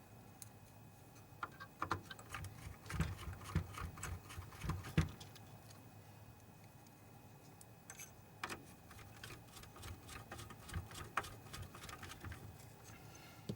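Scattered light clicks and taps of small projector parts being handled and fitted by hand, a busy cluster in the first few seconds and sparser clicks later.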